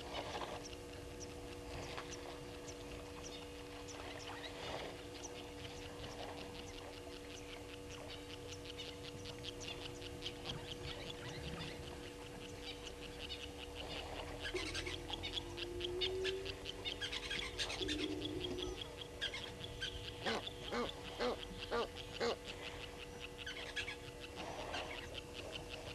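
Wild birds calling at a bushveld waterhole. A dense patter of short high chirps runs throughout, and a series of five evenly spaced louder calls comes near the end, over a steady low hum.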